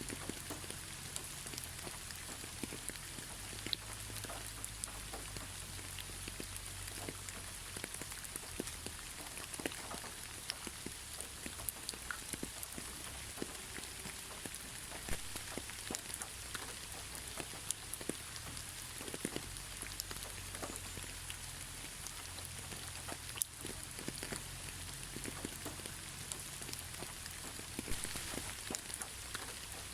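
Gentle steady rain: a constant hiss with many scattered single drops ticking sharply on a surface.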